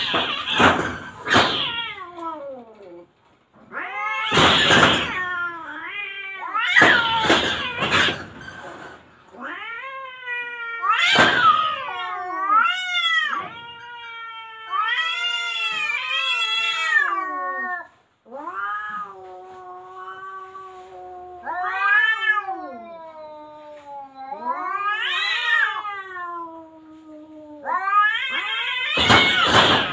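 Two cats threatening each other: long drawn-out yowls that rise and fall in pitch, broken by several loud hissing spits.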